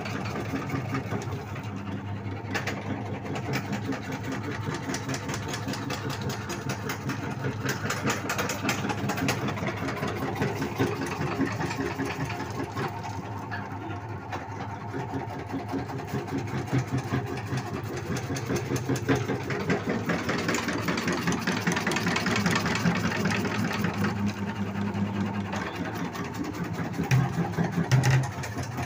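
Motor-driven supari (areca nut) cutting machine running, a steady low motor hum under a dense, rapid clatter as its blades chop the nuts. A louder knock sounds once near the end.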